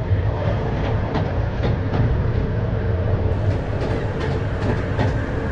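Miniature park train running along its track, heard from on board: a steady low rumble of the wheels with faint, irregular clicks from the rails.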